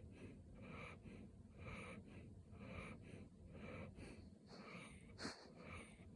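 Golden retriever puppy snoring faintly in its sleep, breathing in an even rhythm about once a second. A single sharp click a little over five seconds in.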